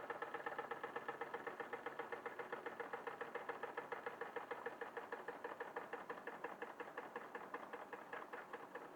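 Wilesco D21 toy steam engine running down on falling steam pressure after the burner is shut off: a rapid, even chuffing beat of about eight strokes a second, growing slightly fainter.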